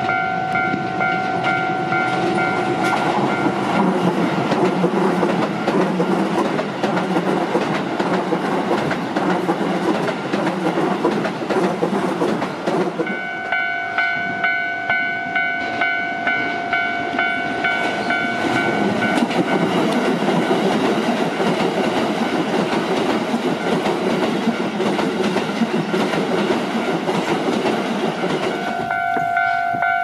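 Level-crossing warning bell ringing in a steady, rapid repeat while two electric commuter trains pass one after the other, their wheels rumbling and clattering over the rails. A Keisei 3050 series goes by from about three seconds in and a Keikyu 600 series from about nineteen seconds in. The bell is drowned out while each train passes.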